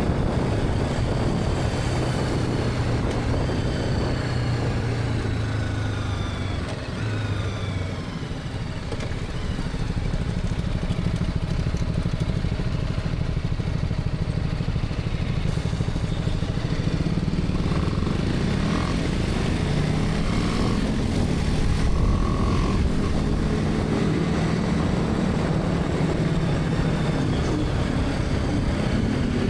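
BMW G310R's single-cylinder engine heard from the rider's position over wind and road noise, its pitch falling as the bike slows over the first several seconds, then rising again as it accelerates about twenty seconds in.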